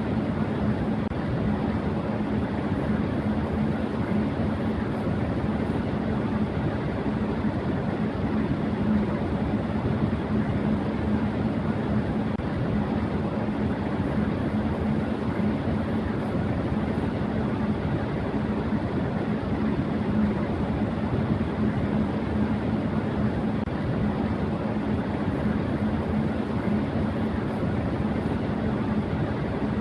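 Electric fan running at high speed: a steady rush of air with a constant low hum from the motor and blades.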